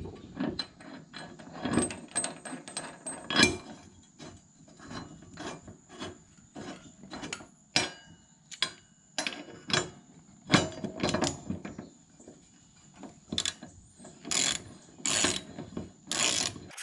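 Hand ratchet wrench clicking in short irregular runs as a socket turns the blade bolt on a riding mower deck, with metal knocks from the blade and tools. The blade is being refitted after sharpening.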